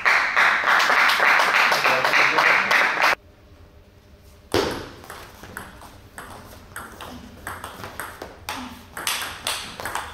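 Table tennis ball in a rally: quick, sharp clicks of the ball off the bats and the table, a few per second, starting about four and a half seconds in. Before the rally, a loud, even burst of noise lasts about three seconds and cuts off suddenly.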